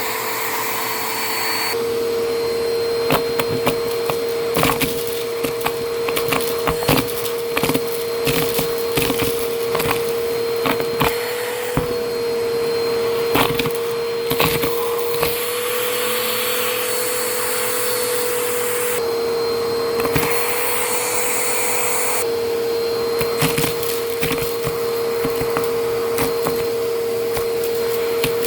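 Vacuum cleaner running with a steady motor whine while crunchy debris crackles and clicks as it is sucked up through the nozzle.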